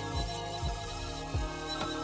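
Background music with a deep beat about twice a second.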